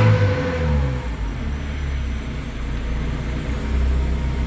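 Honda Civic engine idling steadily, running again after its crank-no-start fault (dead ECU and corroded PGM-FI relay) was repaired.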